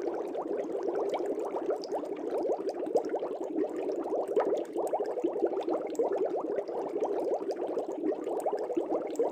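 Air bubbles streaming up through aquarium water: a steady, dense bubbling of many small bubbles, each a quick rising blip.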